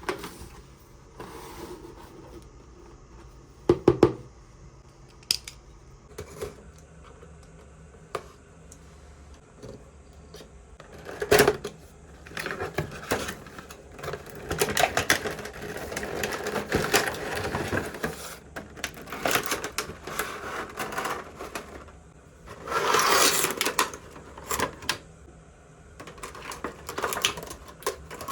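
Hands unpacking and handling small plastic toys: scattered clicks and knocks with stretches of packaging rustle, and a louder rustling burst about 23 seconds in.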